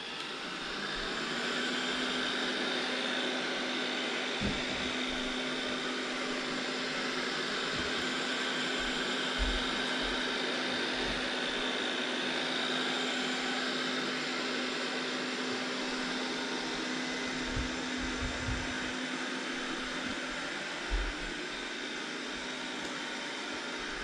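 Robot vacuum cleaner running: a steady whir of its fan and brushes with a low hum, building up over the first second or two. A few short low thumps come as it moves.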